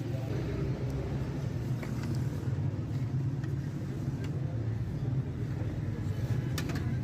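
Steady low engine rumble of a road vehicle, with a few sharp clicks near the end.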